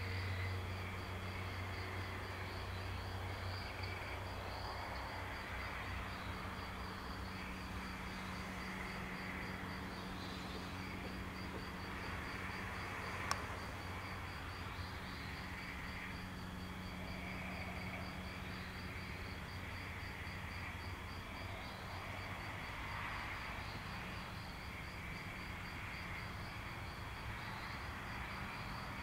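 Crickets chirping in a steady, evenly pulsed high trill, over a low steady hum. One sharp click about halfway through.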